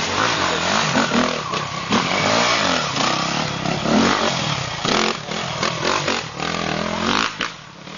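Enduro motorcycle engine revving hard and dropping back over and over as the bike climbs a steep dirt bank, easing off about seven and a half seconds in.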